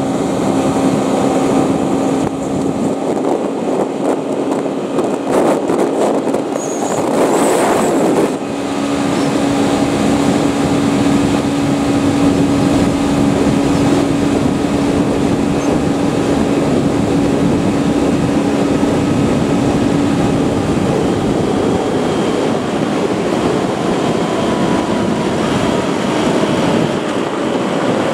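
Motorcycle engine running at a steady cruising speed, with wind and road noise while riding. A steady engine hum holds until about two-thirds of the way through, and there is a brief swell of noise about seven seconds in.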